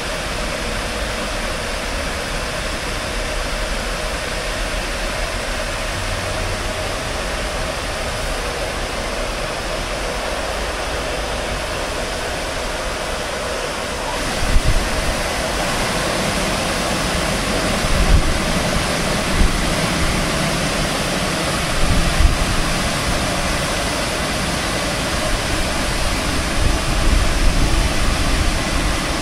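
Rollover car wash gantry at work: a steady rush of water spray and spinning brushes over a car, with a faint steady machine hum. From about halfway, irregular low rumbles and knocks join in.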